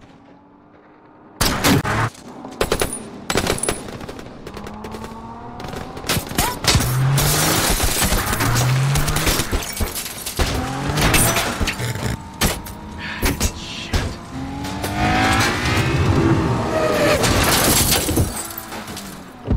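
Film action soundtrack: a first loud shot about a second and a half in, then many rapid gunshots and impacts over a dense mix of score music and vehicle sounds.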